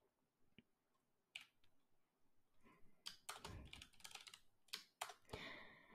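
Faint typing on a computer keyboard: a single keystroke about a second and a half in, then a run of quick keystrokes through the second half.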